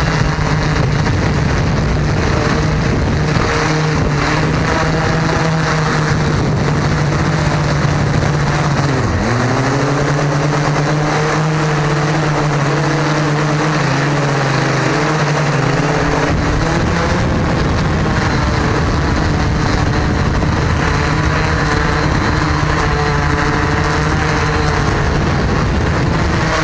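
Small quadcopter drone's electric motors and propellers buzzing steadily close to the on-board camera microphone. The pitch dips sharply and climbs back about nine seconds in as the throttle changes.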